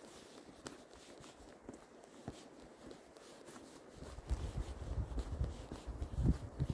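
Footsteps of a walker on a snowy path, faint at first, then heavier low thuds with a low rumble from about four seconds in.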